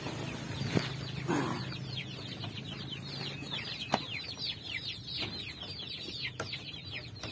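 Young chicks peeping together, a dense stream of high, falling peeps that builds from about two seconds in: hungry chicks at feeding time. A brief rustle near the start and a few sharp knocks.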